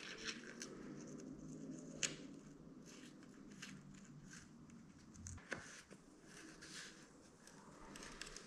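Faint clicks and handling noises of metal hardware and tools as a rear-shock mounting bolt is put back in by hand. Two sharper clicks stand out, about two seconds in and again near five and a half seconds.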